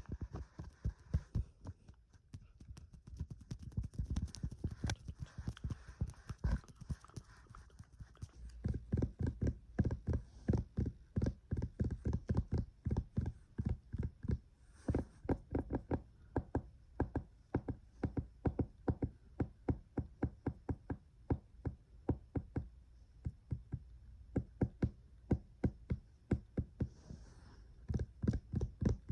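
Fast, rhythmic ASMR tapping: sharp knocks with a deep thud, about three a second, in a quick unbroken run that pauses briefly near the end and then picks up again.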